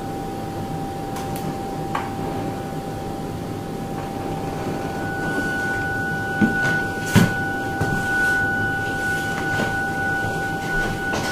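A steady pure tone, with a second tone an octave higher joining about five seconds in, over a low rumbling background, with two soft thumps a little past the middle.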